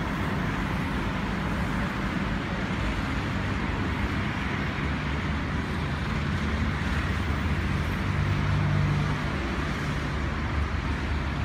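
Street traffic: a steady hum of vehicle engines and road noise, swelling slightly about eight to nine seconds in.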